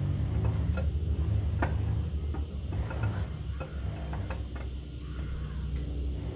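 Hydraulic roller camshaft being slid by hand through the cam bearings of a V8 engine block: scattered light metal clicks and taps as the lobes and journals catch on the bearings. A steady low hum runs underneath.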